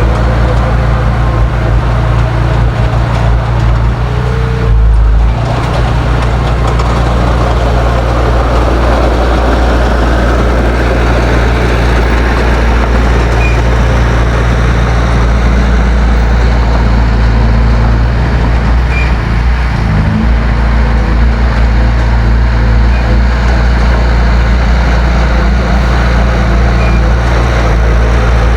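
Heavy diesel engine of earthmoving equipment running loud and steady, its note changing briefly about five seconds in and again around twenty seconds in.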